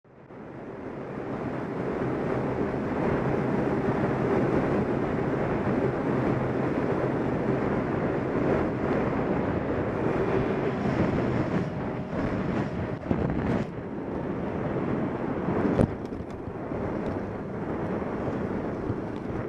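A 50cc Booster scooter's engine running steadily under way, heard from the rider's position with wind buffeting the microphone. A single sharp knock comes near the end.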